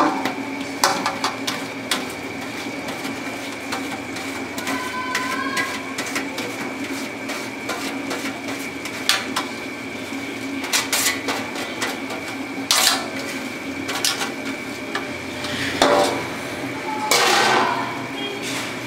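A steel bowl and a spoon knock and scrape against a large aluminium cooking pot as parboiled rice is tipped in and spread in a layer. The clinks come at irregular intervals, with a few longer scrapes in the later part, over a steady background hum.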